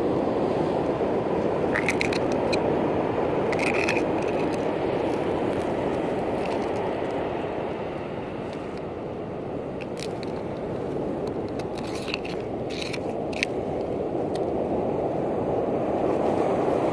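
Small knife scraping and prying mussels out of their shells on a wooden log, with a few sharp clicks and scrapes now and then. Under it, the steady rush of ocean surf.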